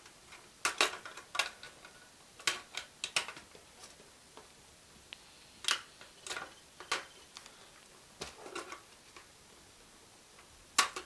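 Plastic Lego Technic parts clicking and clattering as the model and its grey box are handled by hand: a scattered series of sharp clicks, the loudest near the end.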